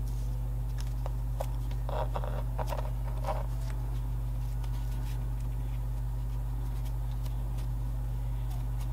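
Steady low hum with light clicks and taps of hand leatherwork, and a brief scratchy rustle about two to three and a half seconds in.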